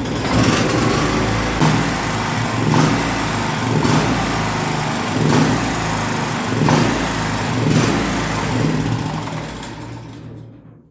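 Small gasoline generator engine running unevenly, surging and sagging about once a second instead of holding a steady speed: the sign of a badly adjusted engine, which the owner suspects lies in the carburetor. The sound fades away near the end.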